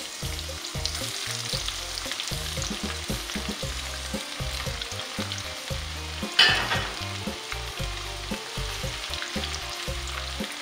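Sliced garlic frying in hot oil in a wok, a steady crackling sizzle while a spatula stirs it. One louder sharp sound about six seconds in.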